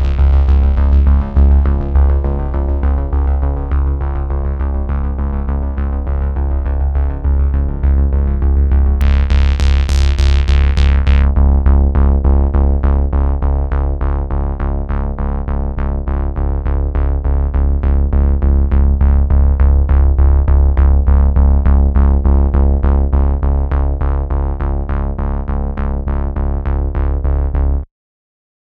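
Electronic background music: synthesizer with a heavy bass and a fast steady pulse, cutting off suddenly near the end.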